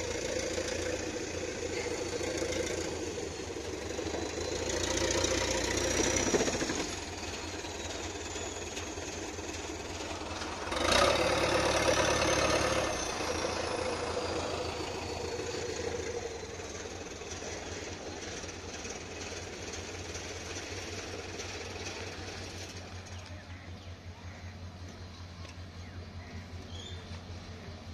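A vehicle engine running steadily with a fast, even beat. It swells louder around five seconds in and comes in suddenly louder for a couple of seconds just after ten seconds.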